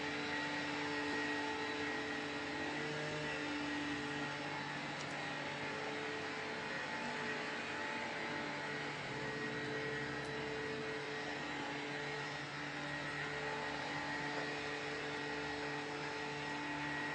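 Steady machine hum: an even hiss with several constant tones, unchanging apart from slight shifts in its lowest tone.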